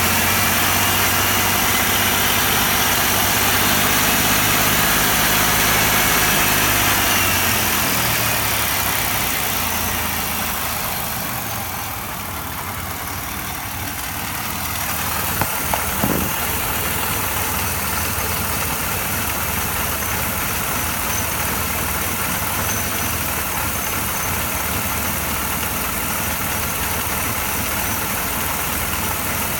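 3800 supercharged V6 engine idling steadily, its supercharger belt-driven, with a light rattling that is definitely a bad supercharger bearing. A few sharp clicks come about halfway through.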